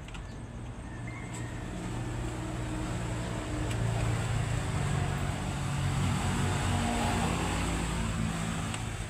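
A motor vehicle passing by: its engine and tyre noise grows louder, peaks about halfway through, then fades.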